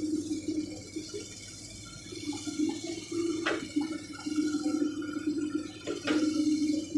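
Hydraulic excavator at work, its diesel engine and hydraulic pump running with a steady drone and whine, with two sharp knocks, one about halfway through and one near the end.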